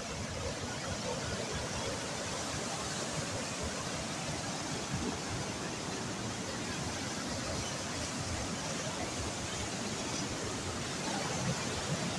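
Steady rush of a river waterfall, an even roar of falling water that holds constant throughout.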